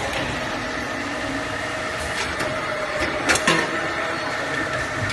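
Can-production line machinery with a conveyor belt running steadily with a hum. A cluster of sharp clanks comes between about two and three and a half seconds in.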